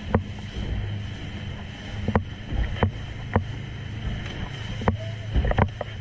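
Small motorboat under way on choppy sea: its engine runs with a steady low drone while the hull slaps against the waves in about six sharp knocks, over a rush of wind and water.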